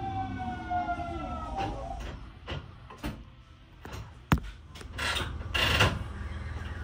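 Hanshin electric train's traction motor whine falling in pitch as the train brakes to a stop. Then come a few clicks, one sharp clank about four seconds in, and two short hisses of air near the end.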